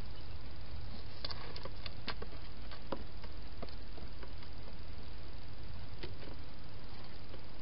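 A hedgehog moving about in a plastic feeding box at its food bowls: scattered soft clicks and taps, most of them in the first few seconds, over a steady low background hiss.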